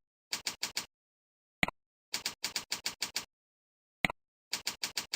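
Computer keyboard typing in three short runs, each led by a single mouse click: a click into a field, then a quick string of evenly spaced keystrokes, as a username and a password are entered into form fields.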